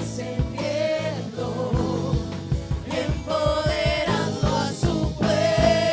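Christian worship song with singing over a band: a steady beat, bass and held sung notes.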